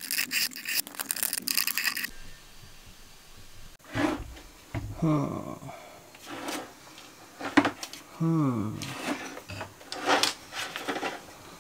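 A pencil scratching a cut line onto a white-painted wooden cabinet divider. It is followed by knocks, clicks and handling noises as a corded jigsaw is picked up and set against the board, with a couple of brief falling squeaks.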